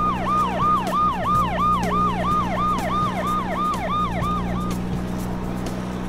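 Siren sound effect: a fast yelp of repeated falling tones, about three a second, that stops a little before the end, over a steady low drone.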